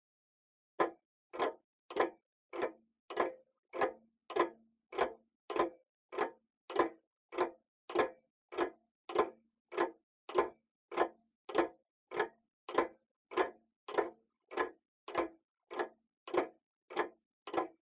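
A steady series of evenly spaced knocks, about one every 0.6 seconds, with dead silence between them.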